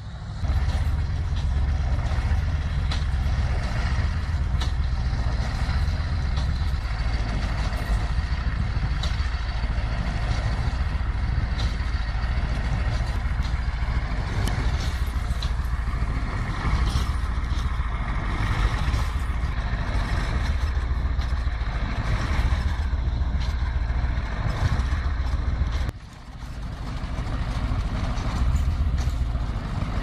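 KAMAZ truck's V8 diesel engine running under load as the truck pulls a loaded trailer through deep snow, a steady deep rumble. Near the end it briefly drops away, then builds up again.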